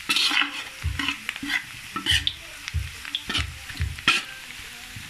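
A spatula scraping and stirring sliced shallots, garlic and ginger frying in oil in a stainless steel wok, in regular strokes about twice a second over a light sizzle. The aromatics are being sautéed until crisp and golden.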